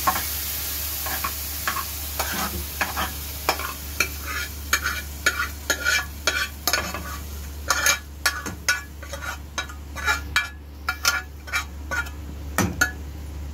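A steel ladle stirring and scraping through freshly tempered moong dal in a pan: a run of short scrapes and clinks against the pan. Over the first second or two it sits on a light sizzle from the hot tadka oil just poured in.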